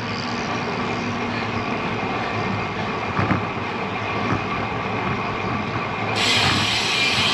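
Wind and road noise on the camera microphone of a road bicycle in motion, a steady rushing; a louder, higher hiss comes in about six seconds in.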